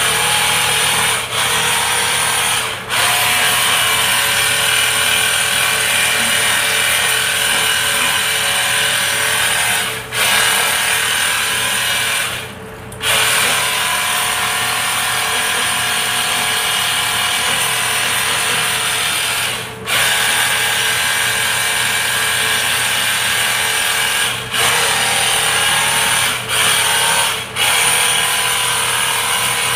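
Small electric pressure washer running and spraying water into a split-type aircon's indoor unit. It cuts out briefly several times, about a second in, near 10 and 13 seconds, at about 20 seconds and a few times near the end, then starts again.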